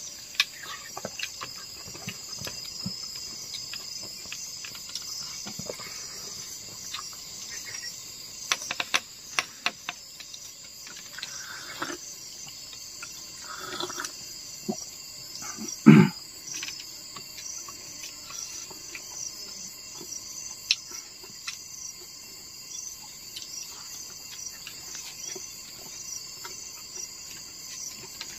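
A steady, high-pitched chorus of insects, pulsing evenly, with scattered clicks and knocks and one louder thump about sixteen seconds in.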